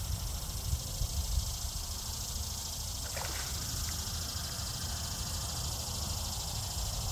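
Outdoor ambience: wind rumbling on the phone's microphone over a steady high hiss, with a brief faint sound about three seconds in.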